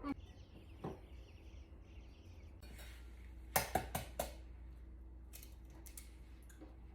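Kitchen utensils and dishes clinking and knocking as breading is prepared, a few scattered clicks with a quick cluster of them about three and a half to four seconds in, over a faint steady hum.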